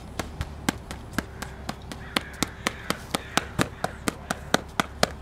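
Boxing gloves striking padded focus mitts in a rapid, even string of punches, about four smacks a second.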